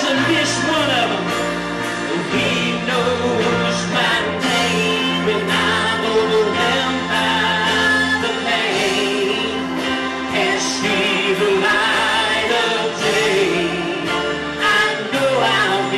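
Church worship team singing a gospel worship song with band accompaniment, the voices carried over sustained chords.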